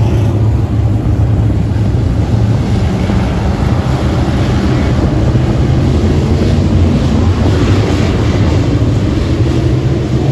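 Engines of a pack of dirt-track race cars running laps on the oval, loud and steady, with some rising and falling as the cars pass, and wind on the microphone.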